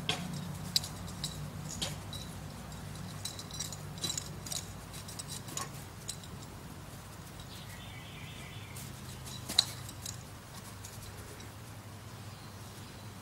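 Scattered light clicks and clinks from a dog trotting and pouncing about on dry grass, over a steady low hum.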